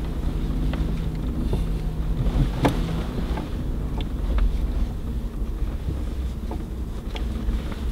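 Cabin sound of a Mercedes-Benz G500 4x4²'s twin-turbo V8 driving over sand tracks: a steady low engine drone with scattered clicks and knocks, one sharper knock about a third of the way in.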